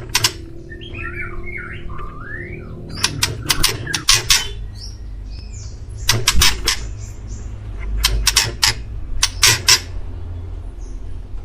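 Male white-rumped shama (murai batu) singing: wavering whistled phrases near the start, then five quick runs of harsh, rasping notes spaced a second or two apart. A steady low rumble runs underneath.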